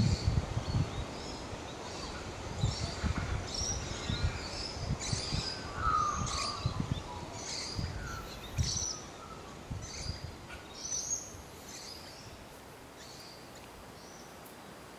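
Several birds chirping in short, high calls, with one lower falling whistle about six seconds in, over a gusty low rumble. The birds fall quiet in the last few seconds.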